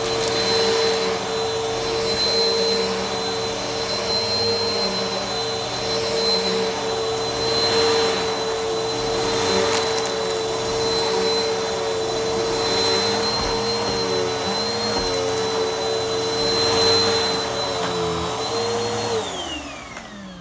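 Vacuum cleaner running with a steady motor whine, its pitch wavering slightly at times. Near the end it is switched off and the whine falls in pitch as the motor winds down.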